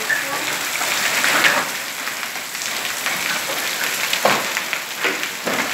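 Hailstorm: a dense, steady patter of hail and rain striking hard surfaces, with many sharp ticks of individual hailstones and one louder hit about four seconds in.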